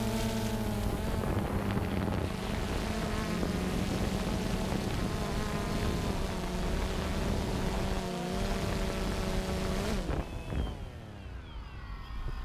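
Quadcopter motors and propellers buzzing steadily in flight, the pitch wavering as the throttle changes. About ten seconds in the hiss cuts off and the motor tones slide down in pitch as the propellers spin down.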